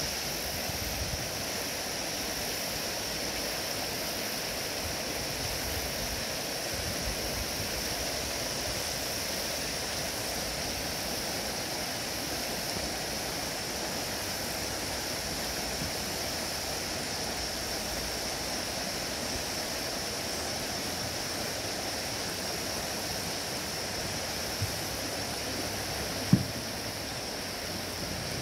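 Water rushing steadily over the rocks of a shallow creek riffle. A single short thump stands out near the end.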